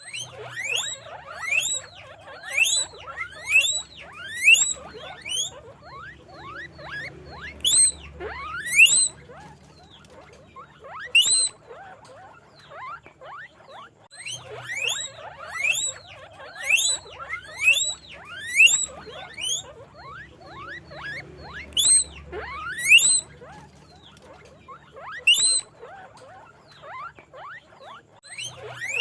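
Guinea pig squeaking: short, sharply rising squeals repeated in runs of several at a time, with pauses of a second or two between runs.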